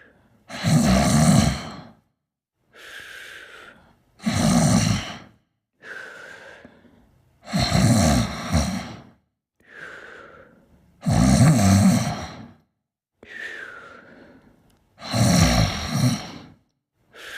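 Snoring during sleep: five loud, low, rattling snores about every three and a half to four seconds, each followed by a softer breath with a faint whistle in it.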